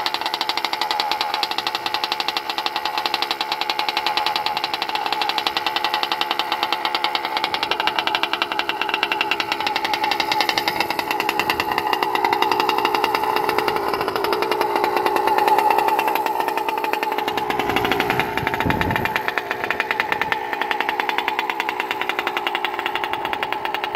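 Gas two-stroke engine of a Losi 5ive-T large-scale RC truck, an OBR 47cc, idling steadily with a rapid, even firing rhythm, rising briefly in level about two-thirds of the way through.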